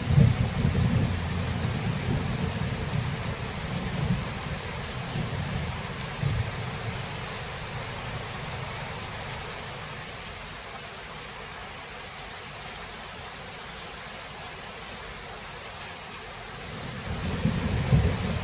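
Steady rain with rolling thunder: a low rumble at the start dies away over several seconds, leaving just the rain, and another roll of thunder builds near the end.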